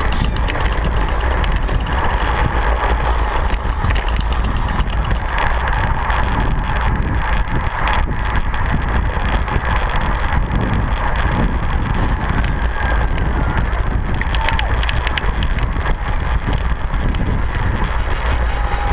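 Wind buffeting the microphone of a handlebar-mounted camera on a road bike at racing speed, a steady rumble. Short clicks and rattles from the bike and camera mount run through it.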